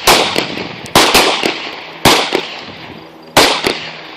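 A rapid, uneven string of handgun shots from several shooters firing at once, each crack ringing out briefly. The shots come in clusters about a second apart and stop shortly before the end.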